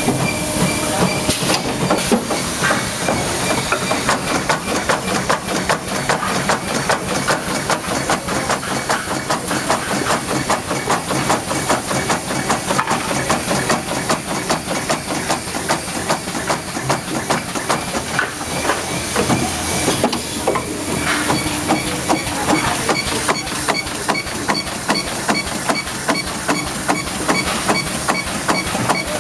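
Radiator circumferential seam welding machine running: a fast, regular train of clicks over a steady hiss, with a louder pulse repeating about once a second.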